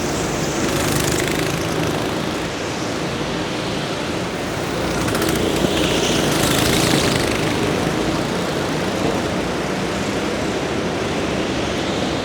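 Engine noise from a motorsport recording, running steadily, with one swell as a vehicle passes close about six seconds in.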